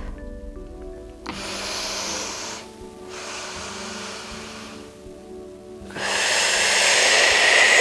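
A woman breathing in through her nose in two drawn-in pulls, about a second in and about three seconds in, then breathing out loudly all at once about six seconds in, a yogic breathing exercise. Soft background music with sustained notes plays underneath.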